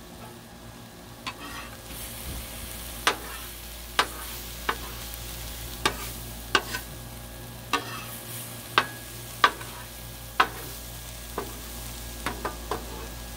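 Diced broccoli and carrots and fish fillets sizzling steadily on a Blackstone flat-top griddle. A metal spatula clicks and scrapes against the griddle plate about a dozen times, at irregular intervals, as the vegetables are scooped and turned.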